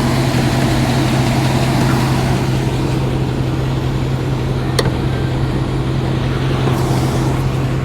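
Car engine idling with a steady hum, a single sharp click about five seconds in. The engine is misfiring, a fault the dealership traced to a worn camshaft and lifter.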